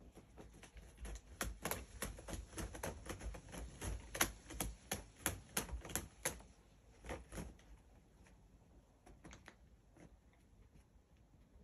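Sphynx cat clawing a round corrugated cardboard scratcher. A quick run of rasping scrapes, about three a second, starts about a second in and lasts some five seconds, followed by a couple more and a few faint ones near the end.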